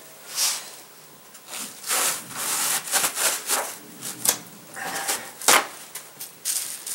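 Blue shop paper towels being handled and crinkled on a workbench, a series of uneven rustles, with one sharp tap about five and a half seconds in.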